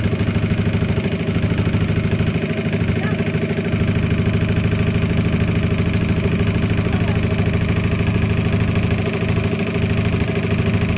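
Small motorboat's engine running steadily at a constant speed, with a fast, even chugging.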